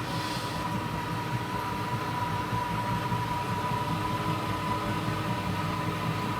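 Wall-mounted gas boiler running at half power, its heat exchanger making a steady rumble with a thin steady whistle over it. The noise is water starting to boil in the heat exchanger while the circulation pump runs on its lowest speed.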